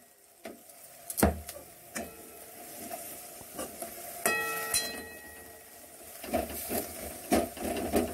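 A steel ladle stirring moringa leaves and fried badi in a non-stick kadhai: scattered scrapes and clinks against the pan, one sharp clink about a second in and a short ringing clink a little past four seconds. The stirring turns into quick, repeated scraping near the end.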